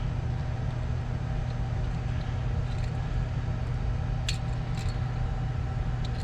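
A steady low mechanical hum at an even level, with a few faint light clicks in the second half.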